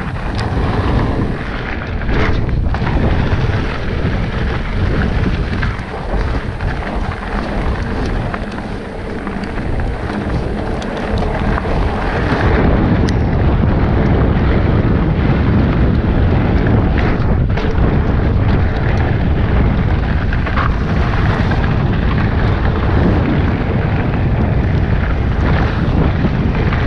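Wind buffeting the microphone over the rumble of fat tyres on a dirt trail as a Salsa Bucksaw full-suspension fatbike descends at speed, with a few sharp knocks from the bike over bumps. It gets louder about halfway through.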